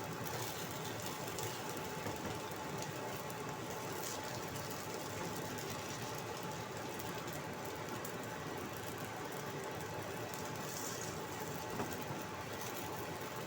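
Hot cooking oil sizzling in a wok as potato and carrot fritters fry: a steady hiss with a few faint crackles.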